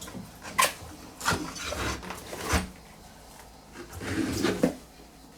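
Wet sneakers in a mesh laundry net being lifted out of a front-loading washing machine drum: a few separate knocks, then a softer rustle near the end.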